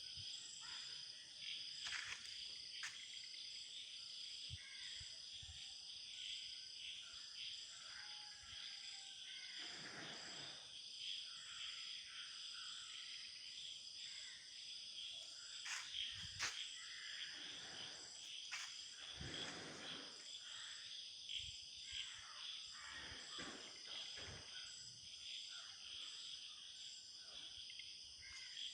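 Crickets and other insects calling in a steady chorus at several high pitches, one of them pulsing evenly. A few soft rushing swells and short clicks pass underneath.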